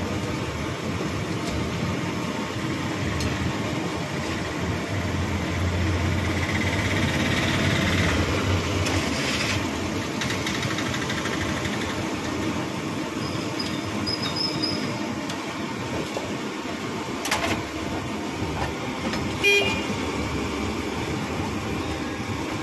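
Batata vadas deep-frying in a large iron kadhai of hot oil, a steady sizzle, over street traffic with a car horn. Two sharp knocks come near the end.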